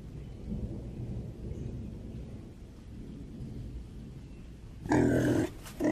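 A low, even rumble, then near the end a domestic pig grunts loudly, one harsh call of about half a second followed by a shorter one.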